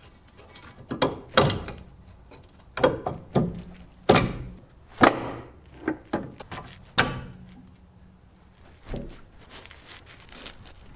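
Irregular knocks and clunks of hand tools and parts being handled during front-end disassembly of a car's suspension: about nine sharp hits in the first seven seconds, then one more a couple of seconds later.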